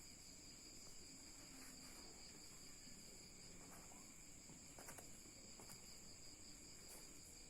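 Near silence, with a faint steady high-pitched whine and a few soft clicks.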